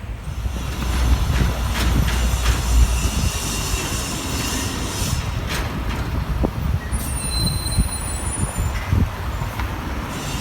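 A moving vehicle's steady low rumble with scattered knocks and clatter, and a brief high squeal about seven seconds in.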